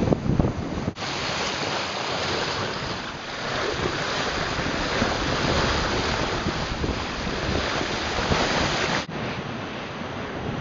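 Heavy wind buffeting the microphone over the rush of water and breaking waves along a sailing yacht's hull as it races through rough sea. The noise drops out briefly about a second in and again about nine seconds in.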